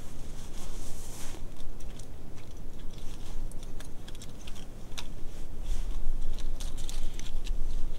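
Handling noise close to the microphone: a low rumble that swells a couple of times, with scattered small clicks and rustles.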